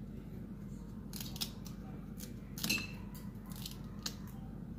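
Kitchen knife cutting pieces off a peeled cassava root held in the hand: a string of short, crisp cuts, about two a second.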